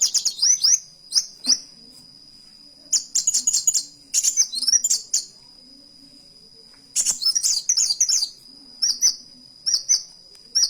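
Kolibri wulung sunbird singing: bursts of rapid, high, sharp chirps in quick runs, broken by pauses of a second or two, then a few single chirps near the end. A thin steady high tone runs underneath.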